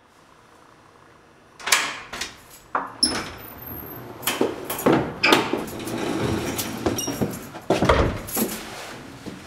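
A heavy door being worked open: a string of sharp clacks and knocks from its latch and handle, irregularly spaced, starting about a second and a half in, over a low rumble.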